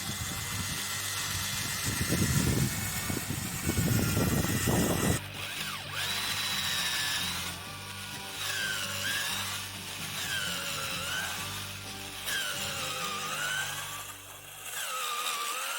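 Power tool working on wood, its motor whine dipping in pitch under load and recovering about every second and a half, over background music.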